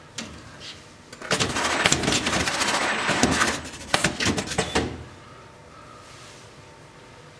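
Reinforced filament tape banding machine running a banding cycle on a stack of metal parts: about four seconds of loud, scratchy mechanical noise with sharp clicks, starting a little over a second in and stopping suddenly.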